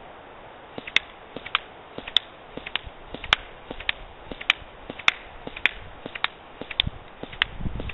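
Airsoft electric gun firing single shots: sharp clicks, irregular, about three a second, starting about a second in.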